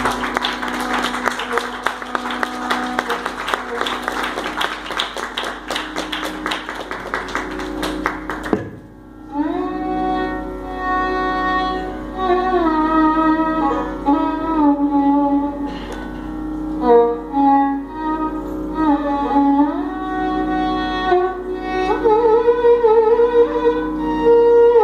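Carnatic music: a mridangam plays a fast, dense run of strokes with the ensemble for about eight seconds and stops abruptly. Then a violin carries the melody alone over a steady drone, with many pitch slides and ornaments.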